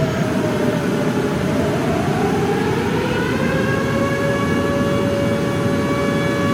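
Jet engines of a C-17 Globemaster III (Pratt & Whitney F117 turbofans) running loud, with a steady rumble under a turbine whine. The whine dips in the first two seconds, then rises about three seconds in and holds at a steady pitch, as the engines spool up.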